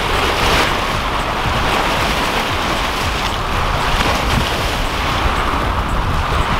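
Small waves washing and breaking over shoreline rocks, the surf swelling and easing as each wave comes in, with wind rumbling on the microphone.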